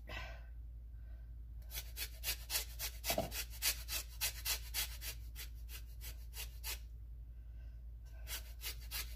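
Lemon rind being zested on a handheld rasp grater: quick scraping strokes, several a second, in two runs with a pause between.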